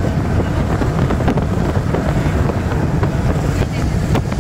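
Steady road rumble and wind noise of a car travelling at speed, with wind buffeting the microphone.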